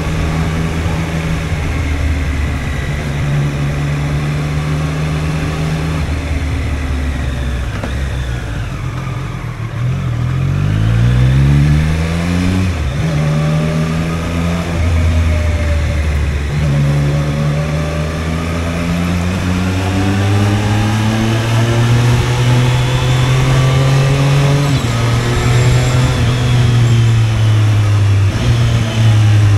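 Triumph Street Triple's inline three-cylinder engine heard from the rider's seat, running at moderate revs. It eases off about eight seconds in, then pulls away with a rising pitch and steps up through the gears, running a little louder toward the end.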